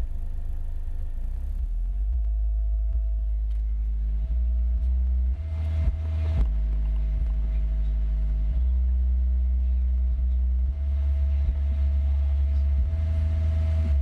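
Car subwoofers driven hard by a Planet Audio AC2500.1M amplifier, playing a loud, steady 32 Hz bass test tone at 2 ohms; the bass level steps up and down several times, with a thin steady high tone underneath.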